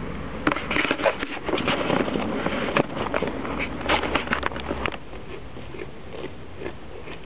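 Goats tearing and chewing grass: a quick, busy run of crisp rips and crunches for about five seconds, then softer and sparser.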